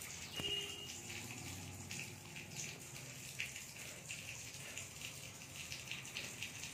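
Rottweiler panting: a run of soft, breathy puffs over a steady hiss.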